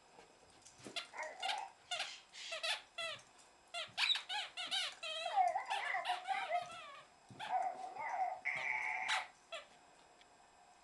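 Babble Ball talking dog toy setting off a run of short squeaky, warbling electronic sound clips as the dogs nudge and roll it.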